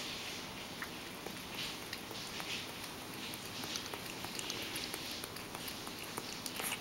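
Ragdoll cat lapping milk from a stainless-steel bowl: a quick, uneven run of small wet tongue clicks.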